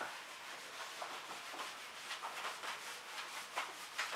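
A whiteboard being wiped clean with a hand-held duster: a series of faint, quick rubbing strokes across the board.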